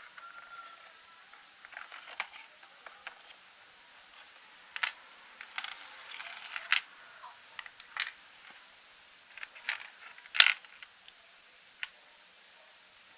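Plastic LEGO pieces clicking and clattering as they are handled, in a dozen or so irregular sharp clicks. The loudest are a little under five seconds in and about ten and a half seconds in.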